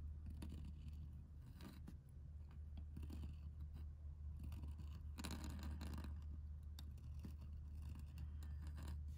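Metal pointed calligraphy nib scratching across paper in a series of short strokes, with a longer, louder stroke about five seconds in, over a steady low hum.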